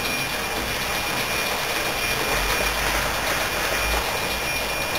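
Train running: a steady rushing noise with a faint, high, steady whine over it, and a low rumble that swells in the middle.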